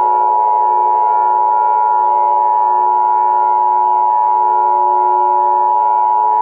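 Emergency Alert System attention signal: a loud, steady electronic alert tone held without a break, over a soft synthesizer music bed.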